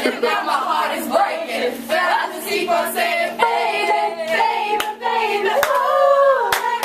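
A group of girls singing and chanting together with hand claps and laughter, ending with one long drawn-out cheer near the end. A faint steady hum runs underneath.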